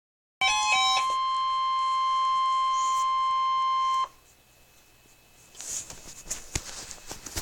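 NOAA Weather Radio alert tone: a brief flurry of quickly stepping electronic tones, then a loud steady single-pitched tone of about 1 kHz held for about three seconds that cuts off abruptly. After it comes faint radio hiss with crackles.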